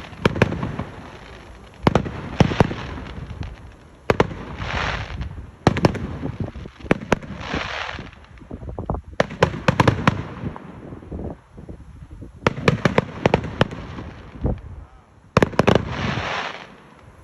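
Fireworks bursting in quick clusters of sharp bangs, a fresh cluster every second or two, with a short crackling hiss after a few of them.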